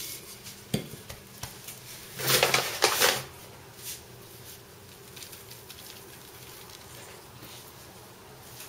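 Dough work on a wooden board: a single light knock of the wooden rolling pin under a second in, then about a second of rustling around two seconds in as the sheet of wax paper is handled, then only faint room hiss.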